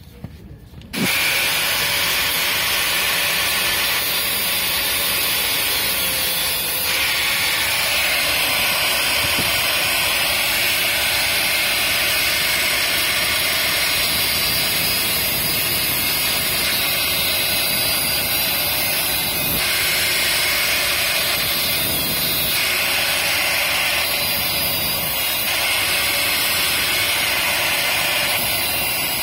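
Electric angle grinder switched on about a second in and grinding steadily on the metal dough hook of a dough mixer, which has snapped off and is being repaired.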